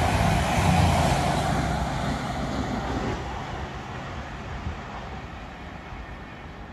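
A diesel passenger train passing and running away up the line, its engine drone and wheel noise fading steadily.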